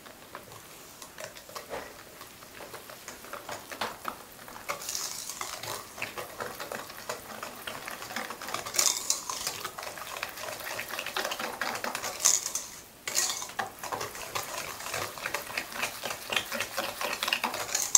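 Wire whisk stirring sugar into melted chocolate and butter in a stainless steel bowl, the wires scraping and clicking rapidly against the metal. It starts faint and grows stronger after a few seconds, with a brief pause about two-thirds of the way through.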